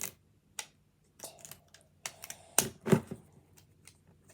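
Plastic packaging of a Miniverse capsule clicking and crackling in the hands as its tear-off zipper strip is picked at and pulled, with a few short clicks and a louder crackle about three seconds in.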